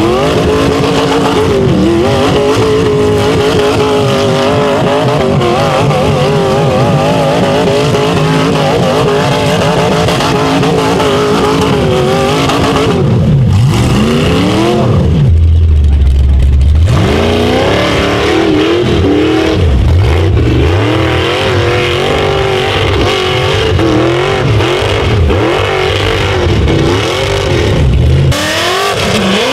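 Rock bouncer's engine revving hard under load, its pitch swinging up and down again and again on a steep wet rock climb. About halfway the revs fall away to a deep low rumble for a couple of seconds, then climb again.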